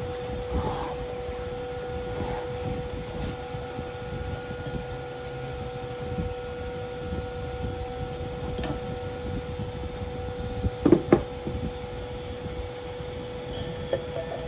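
Steady machine hum, with two sharp knocks in quick succession about three-quarters of the way through.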